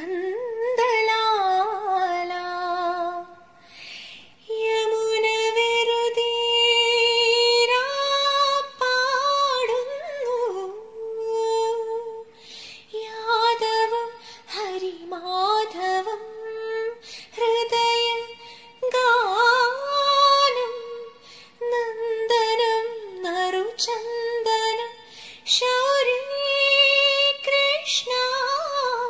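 A female voice singing a slow Malayalam song in phrases of a few seconds, with short pauses between them and little or no backing.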